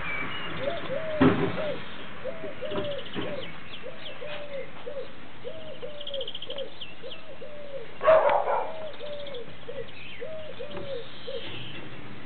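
A dove cooing, one short three-note phrase repeated about every second and a half. Two short thumps, about a second in and about eight seconds in, are louder than the cooing.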